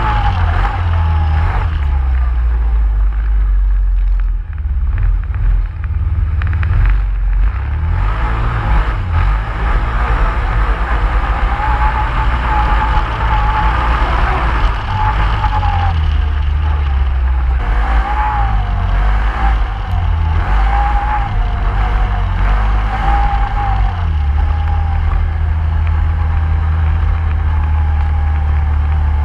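Vehicle engine running under changing load, with a deep rumble that rises and falls throughout and a wavering whine above it.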